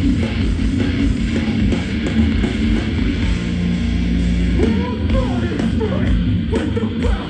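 A hardcore punk band playing live and loud, with heavy distorted guitars and drums. Wavering pitched sounds rise over it from about two-thirds of the way in.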